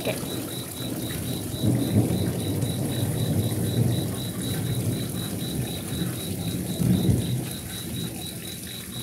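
Thunderstorm: low rolling thunder rumbles over steady rain, swelling about two seconds in and again near seven seconds. A high insect chirp repeats evenly about three times a second.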